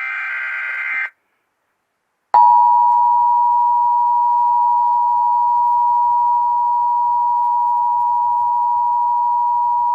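Emergency Alert System audio: the end of a screeching SAME digital header burst, about a second long, then after a second of silence the EAS attention signal, a steady two-tone 853/960 Hz tone that starts sharply about two and a half seconds in and holds for about eight seconds. It heralds an EAS message, here a test.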